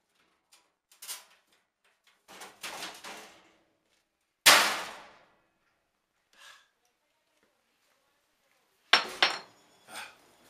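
Metal clanging on an old furnace's sheet-metal parts being knocked apart: one loud ringing clang about four and a half seconds in, two more close together near the end, with smaller knocks and clatter between.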